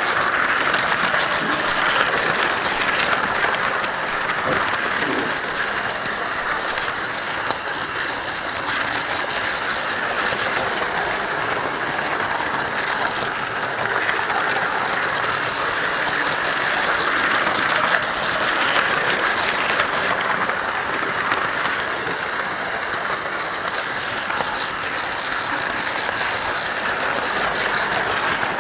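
Model railway train running on the track: a steady rushing hum of the model locomotive's motor and its wheels rolling on the rails, heard from a camera wagon riding on the train, with a few faint clicks from rail joints.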